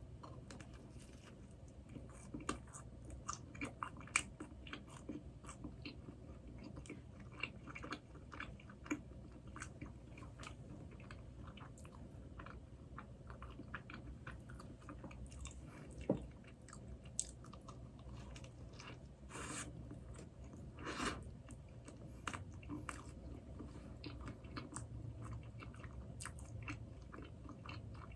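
Close-miked mouth sounds of eating Krispy Kreme doughnuts: biting and chewing with many small wet clicks and crackles. A single sharp tap about 16 seconds in is the loudest moment.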